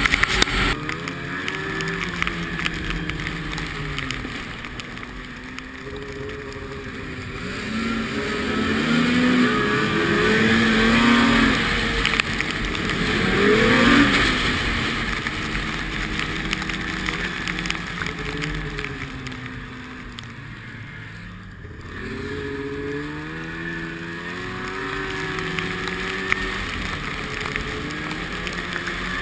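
Engines of vehicles going by, their pitch rising and falling as they pass, loudest around the middle.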